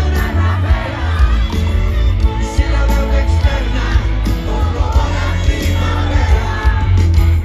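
Live rock band music at a concert, loud and heavy in the bass, with singing and shouts from the crowd.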